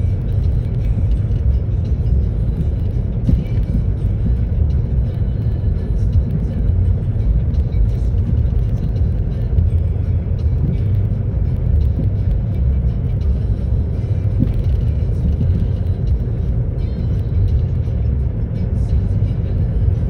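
Steady low rumble of tyre and road noise heard inside the cabin of a moving car.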